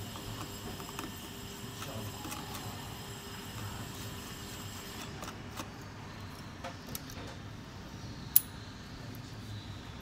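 Small, scattered metallic clicks and taps of a precision screwdriver and tweezers working on the screws and brackets inside an opened smartphone, over a steady low hum, with one sharp click a little past eight seconds in.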